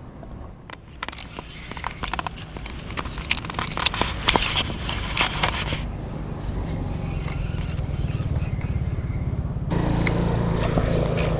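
Scattered sharp clicks and crackles, then from about six seconds in a motor vehicle engine running steadily and drawing closer, getting louder near the end.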